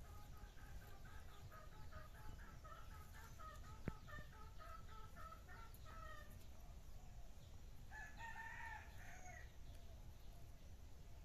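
Faint chickens: a run of short repeated clucks, then a single rooster crow lasting about a second and a half, starting about eight seconds in. One sharp click near four seconds.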